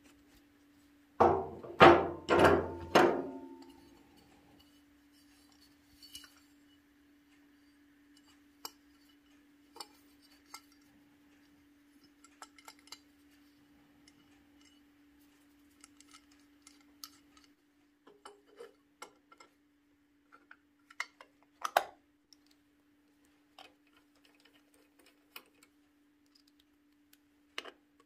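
Scattered light clinks and taps of small metal ignition parts and tools being handled, over a steady low hum. About a second in, three loud bursts stand out above everything else.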